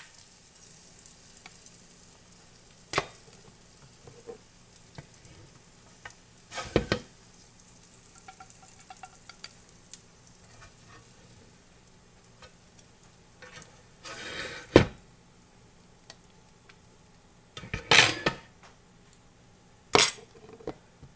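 Eggs sizzling faintly in bacon grease in a Sunbeam electric fry pan, broken by a handful of sharp clinks and clatters of utensils, pan and china plates; the last clatter is a plate set down on the counter near the end.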